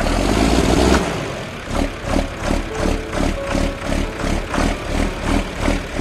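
Tractor engine running: loud at first, then settling into a slow, even pulse of about two to three beats a second.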